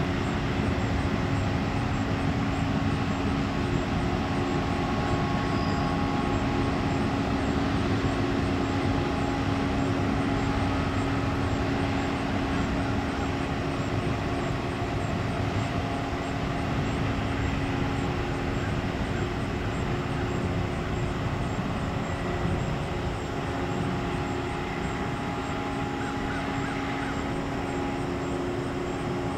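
Freight train cars rolling past through a grade crossing: a steady rumble and clatter of steel wheels on rail. The crossing's warning bell rings in a regular repeat all the way through, and the sound eases slightly near the end as the last cars go by.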